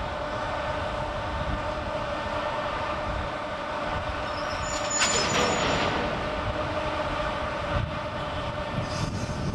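Two JNR Class EF64 electric locomotives working together, hauling a train of tank wagons: a steady mechanical hum with several steady tones. About five seconds in there is a sudden, louder burst of hissing noise lasting about a second.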